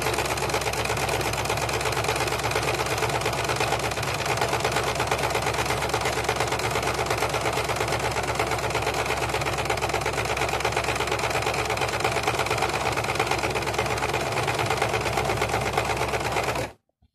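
Electric household sewing machine running steadily at speed, stitching two plush blankets together, then stopping abruptly just before the end.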